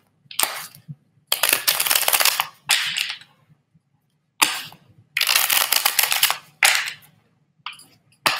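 A deck of tarot cards being shuffled in a series of bursts of rapid clicking and swishing, the two longest lasting over a second each, with short pauses between.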